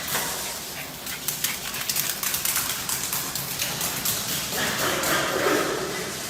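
A dog making vocal sounds over a steady hiss with many small clicks, with a pitched sound coming in about four and a half seconds in.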